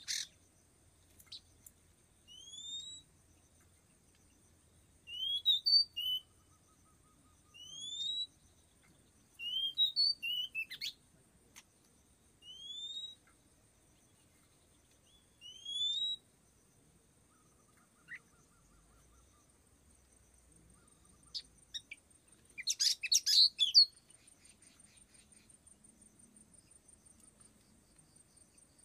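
Oriental magpie-robin song: clear upward-sliding whistles repeated every few seconds, mixed with short chattering phrases. A louder, denser burst of chatter comes about 23 seconds in. A steady, thin, high-pitched tone runs underneath.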